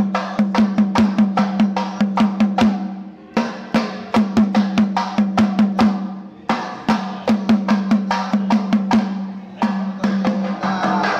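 Drum beaten in a quick, steady rhythm of about five strokes a second over a sustained droning pitch, as in ritual temple music. The drumming stops briefly three times and starts again.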